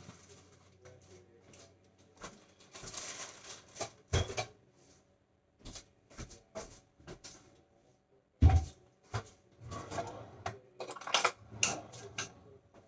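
Kitchen handling noises: irregular clatter and knocks of dishes and a cabinet being worked, with one heavy thump a little past the middle.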